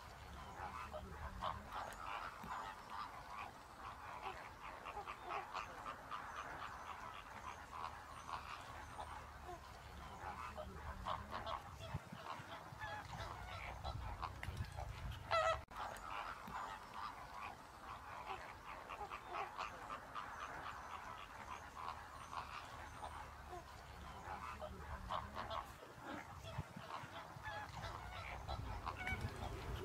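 A large flock of water birds calling continuously, with many short calls overlapping into a steady chatter and one louder call about halfway through.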